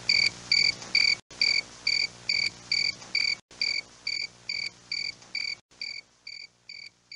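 High-pitched cricket chirping, a steady rhythm of about two chirps a second, fading out gradually over the second half.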